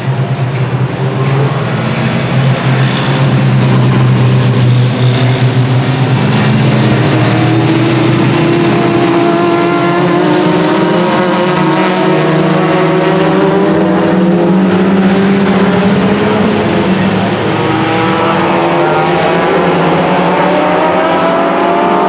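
A pack of 1990s Super Touring race cars with 2-litre engines running hard at full racing revs. Several engine notes overlap; a steady low note early on gives way in the second half to notes that climb as the cars accelerate.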